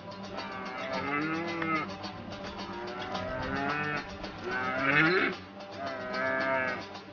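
Red deer stag roaring in the rut: several long, drawn-out bellows, one rising in pitch about five seconds in. Strummed dombra music plays underneath.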